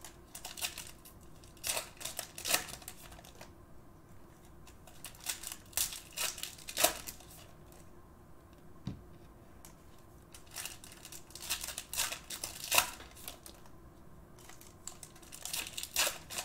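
Crinkling and rustling of an opened foil trading-card pack wrapper and cards being handled, in short irregular crackles with brief quiet gaps.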